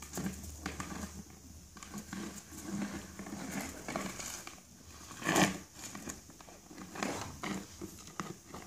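Bulldog puppies scuffling over paving stones and knocking a plastic bucket about: irregular scrapes, patters and knocks, the loudest knock about five and a half seconds in.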